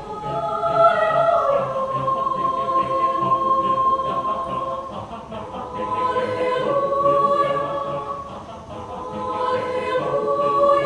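Mixed-voice choir singing long, held chords that swell and ease off twice.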